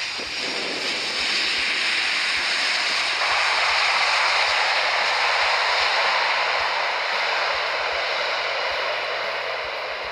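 Jet engines of a Boeing 747 freighter rolling down the runway after touchdown, spoilers up: a steady rushing noise that swells to its loudest about four seconds in, then slowly fades as the jet moves away.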